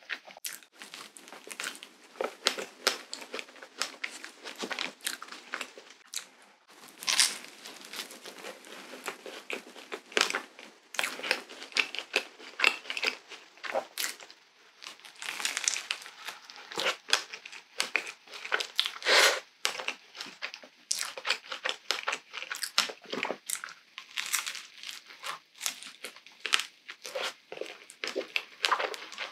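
Close-miked chewing and biting of cream-filled waffles: a dense run of small wet mouth clicks, smacks and soft crunches, with a few louder bites.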